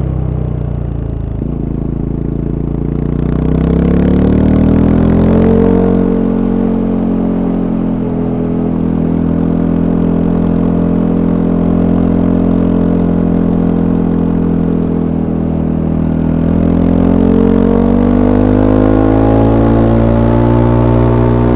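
Voge 300 Rally's single-cylinder engine through its stock exhaust, recorded from on board while riding. Revs climb over a few seconds, hold steady at cruising speed, then climb again near the end.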